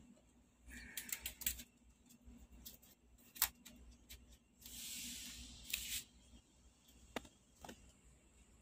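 Faint handling of an LED TV backlight's large white diffuser sheet in its metal frame: soft rustling and a longer sliding hiss around the middle as the sheet is shifted, with a few light clicks and taps.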